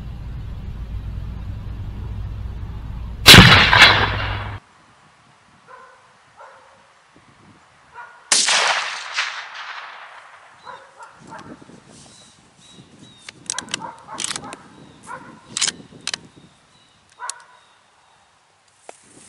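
Two loud, sharp shots from a Savage Axis II bolt-action rifle in .350 Legend, one about three seconds in and one about eight seconds in; the second trails off in an echo for a couple of seconds. These are followed by a scattering of metallic clicks and clacks as the rifle is handled and its bolt worked.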